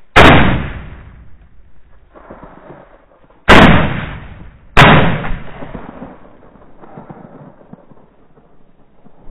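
Three shotgun shots: one right at the start, then two more about a second and a quarter apart some three and a half seconds later, each ringing out and fading over the field.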